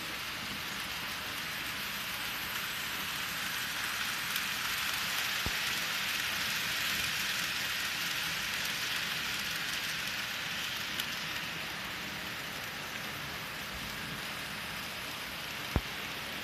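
Model freight train rolling along the layout's track: a steady hiss of small wheels on rail that swells as the cars come near, peaks mid-way, then eases off. A sharp click near the end.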